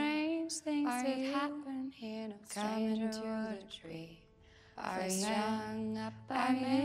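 Background music: a slow, lullaby-like female vocal singing long held notes in short phrases, with a low bass drone entering about five and a half seconds in.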